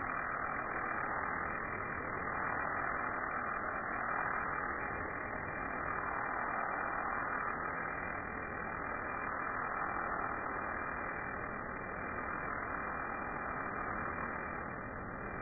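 Pressure-washer lance spraying a high-pressure jet onto patio slabs: a steady hiss of water blasting the stone, swelling and easing a little as the jet is swept across.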